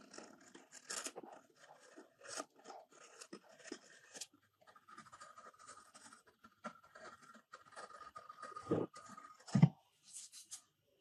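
Steel blade scraping and shaving a laminated Douglas fir handle in a run of short, irregular strokes, with a faint steady ringing tone under the strokes in the middle. Two loud knocks come close together near the end.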